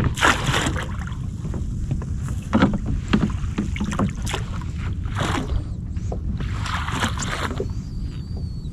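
Landing net scooping and sweeping through the water beside a kayak: irregular short splashes and knocks over a steady low wind rumble on the microphone.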